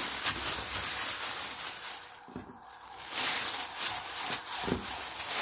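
Thin plastic freezer bag crinkling and rustling as raw rolled pastries are pushed into it by hand, quieter for a moment about two seconds in.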